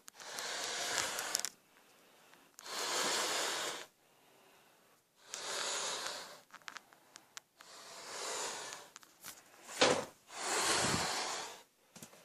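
Heavy, rhythmic breathing close to the microphone: breaths about every two and a half seconds, with a single knock about ten seconds in.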